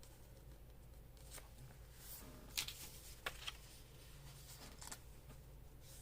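Faint handling of paper pages: soft rustles with a few short crinkles and taps, the sharpest about two and a half and three and a quarter seconds in.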